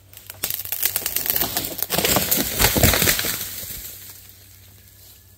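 A felled dead Virginia pine going over: cracking wood and snapping branches build to a loud, heavy crash about two to three seconds in as the trunk hits the forest floor, then die away.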